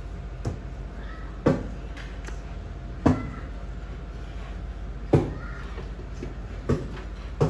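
Five sharp thumps, one every second and a half to two seconds, over a low steady hum.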